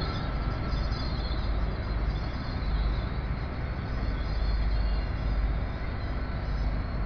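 Steady low rumble of GWR Class 802 trains standing at the platform, their underfloor diesel engines running.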